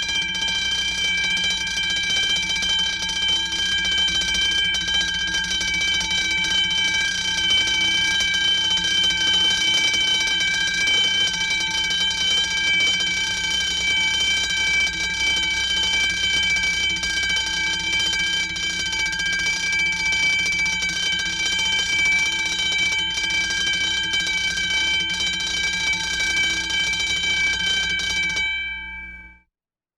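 Electric alarm bell ringing continuously at a steady level, fading out near the end.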